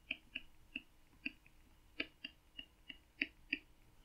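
Stylus ticking against a tablet screen during handwriting: about a dozen faint, irregular clicks.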